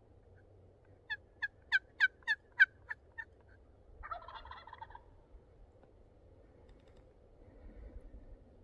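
A run of about nine loud hen-turkey yelps, evenly paced and swelling then fading, followed about a second later by a fainter gobble from a Merriam's turkey gobbler answering, lasting about a second.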